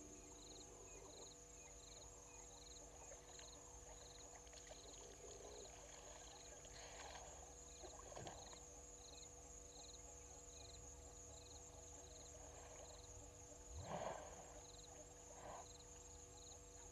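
Near-silent bush ambience: a faint, steady high-pitched insect hum, with a soft chirp repeating about twice a second and a few faint calls, the clearest about 14 seconds in.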